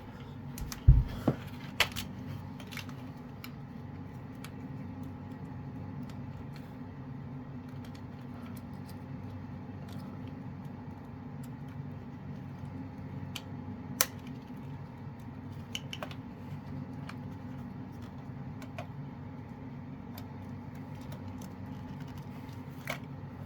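Quiet handling noise: a few sharp clicks and knocks, the loudest about a second in and another partway through, over a steady low hum in a small room.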